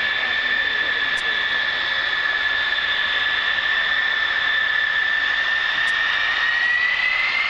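Several F-111 jets' TF30 turbofan engines running at the runway end with a steady high whine. Near the end the whine starts to rise in pitch as the engines spool up.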